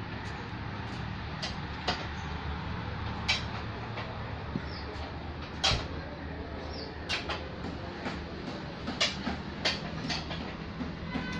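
Car repair workshop background: a steady low hum with scattered sharp clicks and knocks, about ten of them at uneven intervals.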